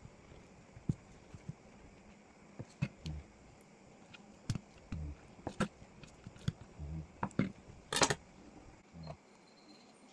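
Chef's knife cutting through a block of firm tofu and knocking on a wooden cutting board: irregular sharp taps about once a second, with soft dull thumps between them, and a louder, longer clatter about eight seconds in.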